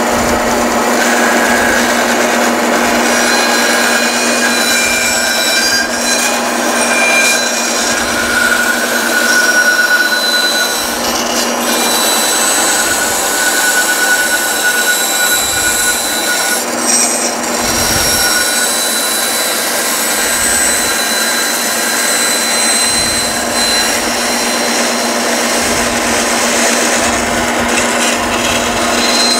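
Bandsaw running and cutting a wooden spoon blank: a steady motor hum under the hiss of the blade in the wood, with faint whistling tones from the blade.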